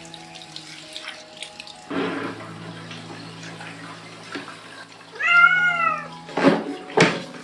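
Water running and splashing during a cat's bath. The wet cat gives one loud, drawn-out protesting meow about five seconds in that rises and then falls in pitch, and two splashes follow just after.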